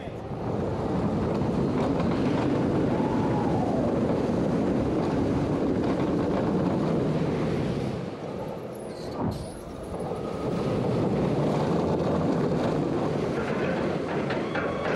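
Wicked Twister, an Intamin impulse roller coaster, heard from a rider's seat: a steady rush of wind and wheel rumble as the train races along the track. The noise drops away about eight seconds in as the train slows near the top of a spike, then builds again as it falls back.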